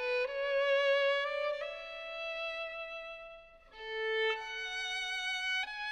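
Background music: a violin playing a slow melody of held notes with vibrato, the phrase breaking off briefly a little past halfway before starting again.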